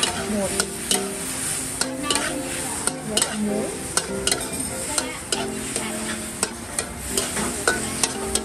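Metal spatula scraping and clanking against a steel wok as cabbage, Chinese cabbage and broccoli are stir-fried, a sharp clank every half second or so. Under it the vegetables sizzle steadily in the hot wok.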